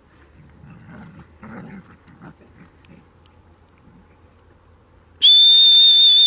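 A long, steady blast on a dog recall whistle, starting about five seconds in: the conditioned signal calling the dog back.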